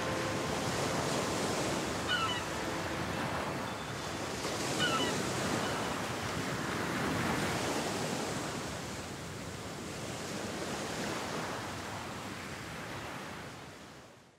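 Sea surf breaking and washing on a rocky shore: a steady hiss of waves that swells and eases slowly, then fades out near the end. Two brief high chirps about two and five seconds in.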